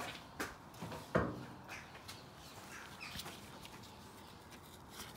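Scattered light clicks and taps of the new downstream oxygen sensor's wire being handled and routed under the car, most of them in the first two seconds, the loudest about a second in.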